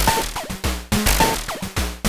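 Moog DFAM analog percussion synthesizer playing a fast sequenced pattern of noisy electronic drum hits with low thumps and short tones, some falling in pitch, repeating in a loop.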